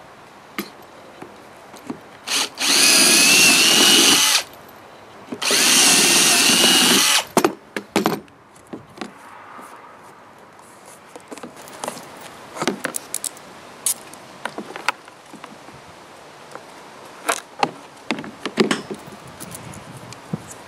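Cordless drill boring through the plastic end piece of a feeder trough, running in two bursts of about two seconds each with a steady motor whine. After them come scattered clicks and knocks as the plastic parts and small bolts are handled.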